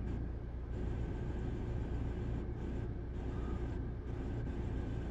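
Steady engine rumble with a faint, even high whine above it, unchanging throughout.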